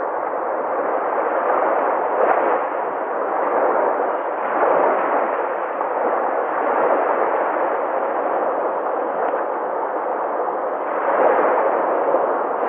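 Sea waves breaking: a continuous rush of surf that swells louder every few seconds.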